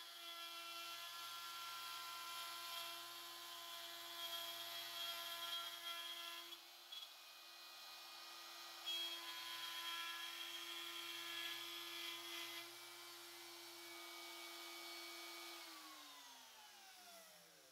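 DeWalt compact router with a 1/4-inch spiral bit running at full speed, swung around a trammel pivot to cut a circular groove in a wood board. The cutting noise comes and goes as the bit moves through the wood, easing off briefly about seven seconds in. Near the end the router is switched off and its whine falls in pitch as it spins down.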